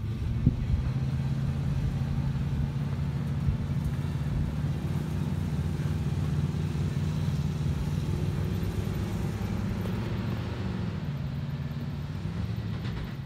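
A vehicle engine running steadily, its pitch shifting slightly now and then.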